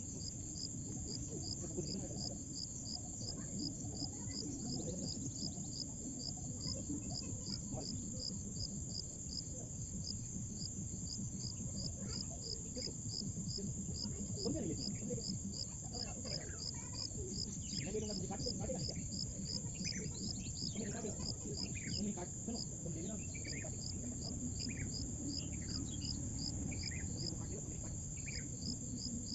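Insects chirping, typical of crickets: a steady high trill with an even, fast pulse over a low background rumble. Faint short chirps come and go through the second half.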